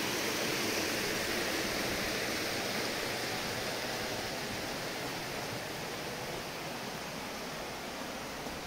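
Muddy rainwater runoff rushing steadily along a shallow stone-lined channel, a continuous watery rush that fades slightly toward the end.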